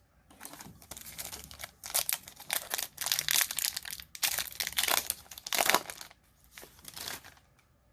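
Crinkling and crackling of a foil trading-card booster pack wrapper being handled, in dense bursts for about six seconds, then one shorter crinkle near the end.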